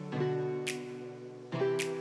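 Background music: a gentle plucked guitar track with chords changing about every second and a light, steady beat.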